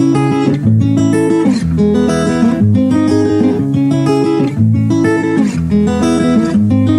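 Instrumental intro of a song: acoustic guitar strumming chords in a steady rhythm, about one chord change a second.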